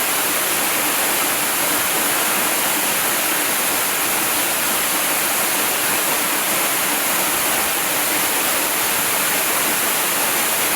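Waterfall: a steady, even rush of falling water, strongest in the high hiss.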